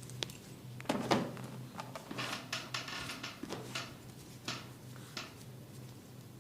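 Barber's hands working on a head during an Indian head massage: irregular sharp cracks and snaps with short crackling runs, the loudest about a second in.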